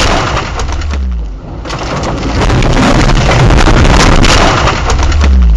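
A car ploughing through bushes and tree branches: loud crashing, with many sharp cracks and snaps as branches and foliage scrape and break against the windshield and body. The noise drops briefly about a second in, then comes back just as loud.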